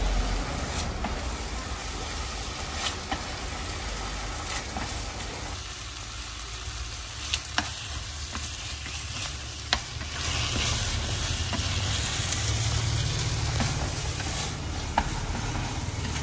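Egg noodles stir-frying in a frying pan: a steady sizzle with the scraping and stirring of the noodles being turned, and a few sharp clicks. The sizzle grows louder about two-thirds of the way through.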